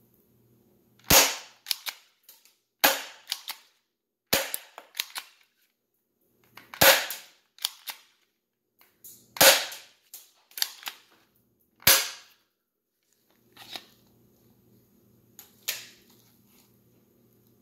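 Tokyo Marui Glock 17L spring-powered airsoft pistol fired six times, each shot a sharp snap about two seconds apart. Lighter clicks come between the shots as the slide is racked by hand to cock the spring for the next BB. After the last shot only faint handling noise is left.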